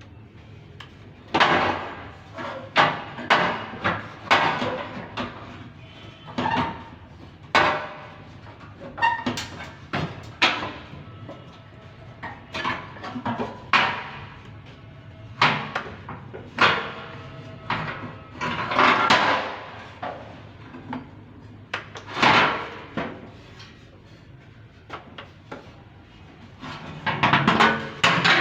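Irregular metal knocks and clanks, each with a short ring, as tools strike or handle metal parts: a few single blows, then quick clusters of them.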